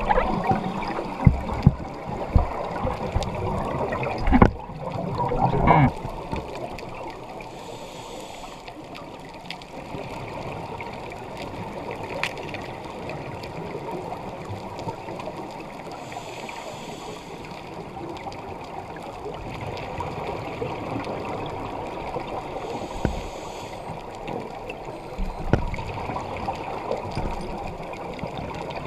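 Underwater sound of a scuba dive picked up through a camera housing: a muffled wash of water noise, with knocks and turbulence in the first six seconds while the camera is moved about. A brief hiss of scuba regulator breathing and bubbles recurs about every seven or eight seconds.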